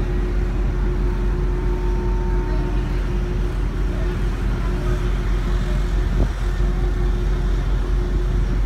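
Steady low drone of a cargo ship's machinery, with a constant hum, while its deck cranes work cargo; a single faint knock about six seconds in.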